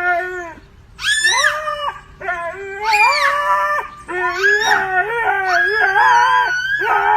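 A dog howling in a series of long, drawn-out howls that glide up and down in pitch, with brief breaks between them; the last howl is the longest.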